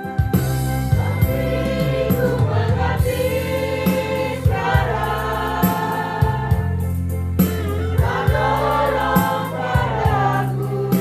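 A group of people singing a gospel praise song together over amplified instrumental accompaniment with a strong bass and a steady beat.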